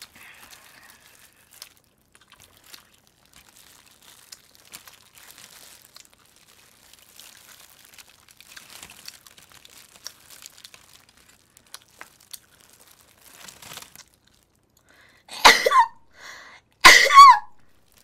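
Faint crinkling and rustling of plastic gloves and aluminium foil as roast chicken is pulled apart by hand, then two loud short coughs near the end, about a second and a half apart.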